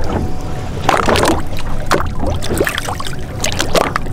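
Sea water sloshing against the side of a boat as a small fish is lowered into it by hand and released, with a steady low wind rumble on the microphone.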